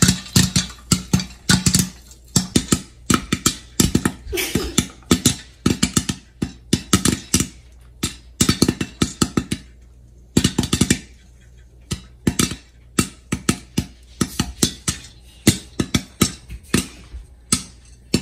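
Popcorn kernels popping in hot coconut oil in a pan under a glass lid: a rapid, irregular run of sharp pops, several a second, with a brief lull about halfway through.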